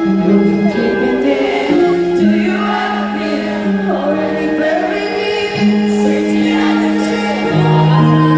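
Live pop music over an arena PA: a woman singing slow, held notes over sustained backing chords.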